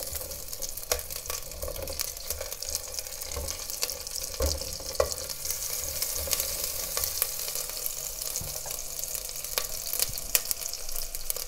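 Two pieces of fat sizzling and crackling in a little hot oil in a pot as they render, with a wooden spoon stirring them and knocking against the pot a few times.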